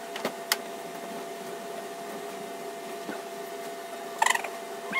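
Sharp metallic clicks and a brief clatter of small metal parts from hands working at a Volkswagen Beetle's steering column wiring, over a steady electric hum: two clicks in the first second, a faint one midway, and a clatter about four seconds in.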